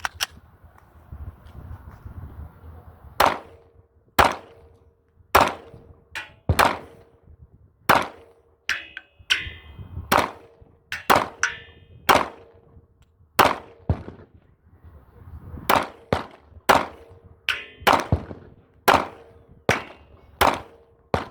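Glock pistol being fired in a long string of single shots at an uneven pace, roughly one a second, some with a faint metallic ring after them.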